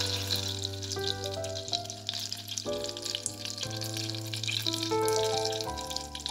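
Vegetables (carrot sticks and Brussels sprouts) sizzling and crackling as they fry in hot oil in a pan while being stirred with a spatula. Background music with held notes plays over it.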